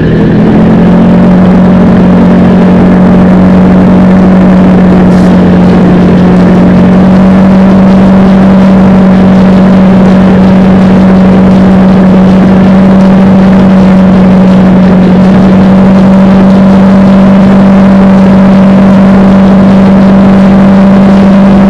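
ATV engine running at a steady cruising speed, heard from on board as one loud, even drone that holds its pitch throughout, mixed with wind rush.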